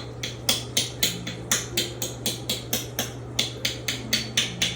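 Fork pricking an unbaked pie crust, its tines tapping through the dough against the pie plate in quick, sharp clicks, about four a second.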